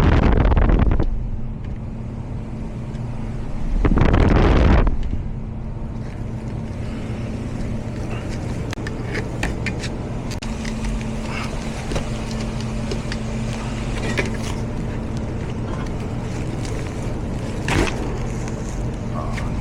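A steady low mechanical hum with light clicks and taps, which fit hand work on a zone damper motor. It is broken by two loud rushing bursts, one at the start and one about four seconds in.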